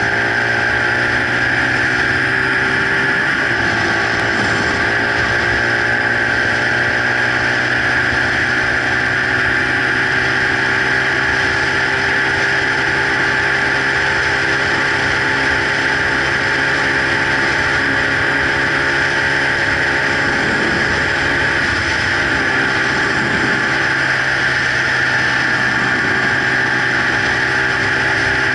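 Romet CRS 50/80 motorcycle's small single-cylinder engine running while riding, its revs rising briefly at the start and then holding steady at a cruising pace.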